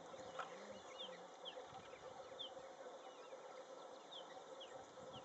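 Faint wild dusk ambience: a series of short, high, falling chirps, about two a second, over a low steady hiss.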